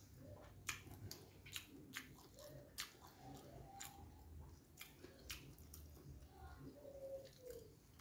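Faint close-up sounds of a man chewing a mouthful of fried martabak: irregular wet mouth smacks and clicks, a few every second.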